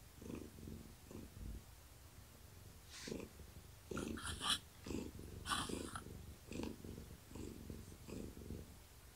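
Long-haired tabby cat purring close to the microphone, a low pulsing purr at about two pulses a second. A few brief scratchy noises come in between about three and six seconds in.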